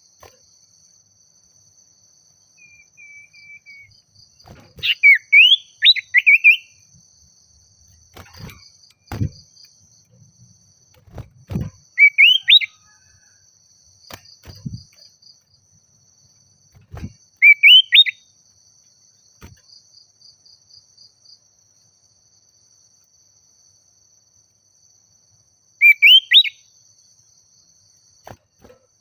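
Common iora (sirtu/cipoh) calling in short phrases of quick rising whistled notes, four phrases spaced several seconds apart. A faint, steady high trill runs behind, and a few low thumps fall between the phrases.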